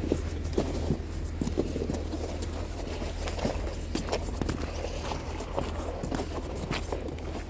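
Footsteps crunching through snow, an uneven series of steps about every half second, over a steady low rumble.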